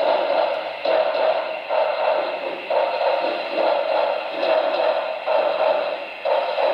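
Steam exhaust chuffs from the sound decoder of an HO-scale Broadway Limited PRR T1 4-4-4-4 duplex, played through the model's small speaker. A hissy chuff comes about once a second, thin and without bass.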